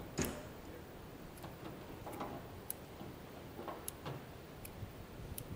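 Faint, scattered small clicks about once a second, with a few brief rustles, as a person handles something on the ground.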